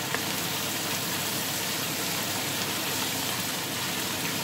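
Rice, grated carrot and spring onion frying in oil in a pot, a steady sizzle as they are stirred with a wooden spoon, with one light tap of the spoon just after the start.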